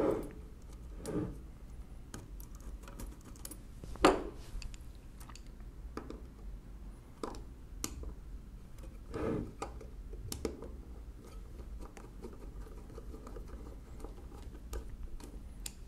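Small metal clicks and scrapes as a screw is set and turned in with a screwdriver on the mechanism of a 1920s Monroe model K mechanical calculator. The clicks are scattered and light, the sharpest about four seconds in.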